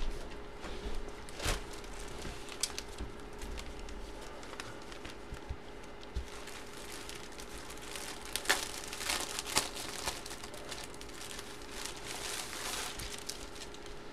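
Plastic packaging crinkling and rustling as it is handled, with scattered sharp crackles, busiest in the second half. A faint steady hum runs underneath.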